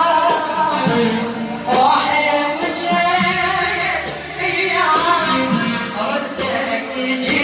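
Iraqi mawwal singing: a voice drawing out long, sliding, ornamented phrases with music.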